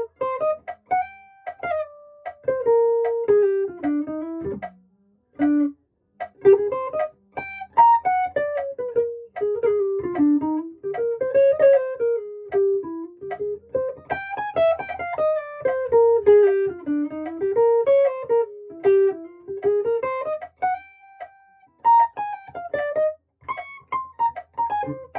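Electric guitar playing quick picked single-note jazz lines that run up and down in pitch, with a brief pause about five seconds in.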